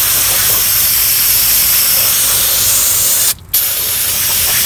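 Aerosol brake cleaner spraying onto a drum brake assembly in a steady hiss, cut off briefly about three seconds in before spraying again.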